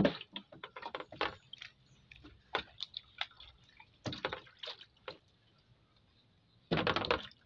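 Water dripping and splashing as a raw pig's leg is washed and scrubbed by hand over a plastic basin, with wet squelches of the skin being rubbed; a louder, longer splash comes near the end.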